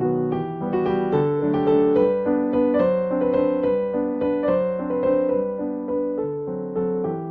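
Background music: a gentle piano playing a steady pattern of chords and melody notes.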